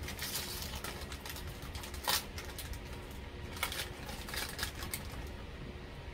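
Crinkly plastic snack bag of sesame chips rustling and crackling in irregular bursts as it is opened and a chip is taken out, with a louder crackle about two seconds in.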